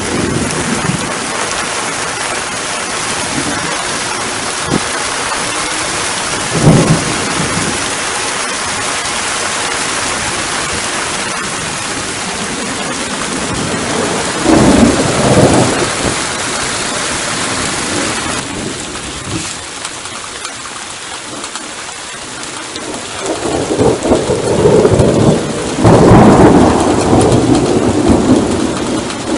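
Steady heavy rain with thunder: a brief loud clap about seven seconds in, a rumble around fifteen seconds, and a long loud rumble building over the last six seconds.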